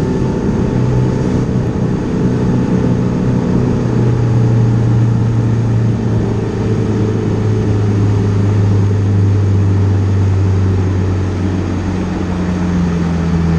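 A boat's outboard motor running steadily under way, a low engine hum over a constant rushing noise. The hum grows louder about four seconds in, and a second, higher tone joins it near the end.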